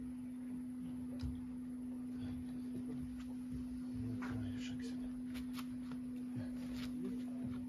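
A steady low hum runs throughout, with scattered light clicks and taps of carp tackle being handled on a rod pod and bait boat.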